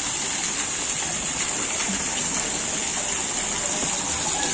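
Steady rushing of a water jet spraying into a shallow tiled fish tank, with a high hiss over it.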